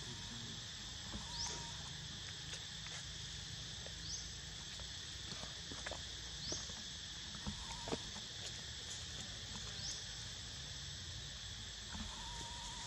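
Steady outdoor insect chorus of crickets or cicadas, a continuous high-pitched hum. A short, high rising chirp repeats every two seconds or so, with scattered faint clicks and rustles over it.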